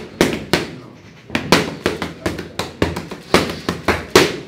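Boxing gloves hitting focus mitts in fast combinations: about a dozen sharp hits in quick groups, with a short break a little under a second in.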